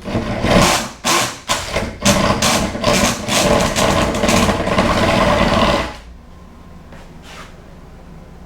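Power drill boring into the wood of a camper door, cutting through staples buried in it. It runs in a few short stop-start bursts, then steadily for about four seconds, and stops about six seconds in.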